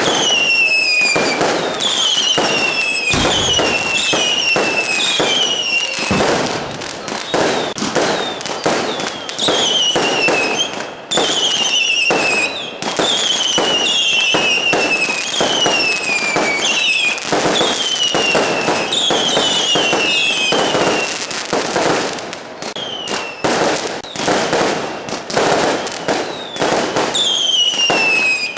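Fireworks display: rapid bangs and crackling going on without a break, with many short whistles falling in pitch one after another.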